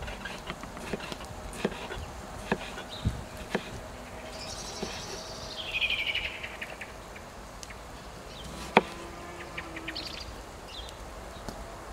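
Kitchen knife slicing a tomato on a wooden cutting board: a handful of sharp knocks as the blade meets the board, the loudest one near the end. A descending chirping trill sounds in the middle.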